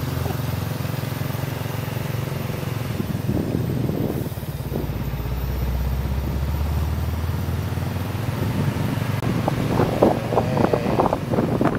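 Hino truck's diesel engine running steadily at low speed as the truck moves off laden with an excavator.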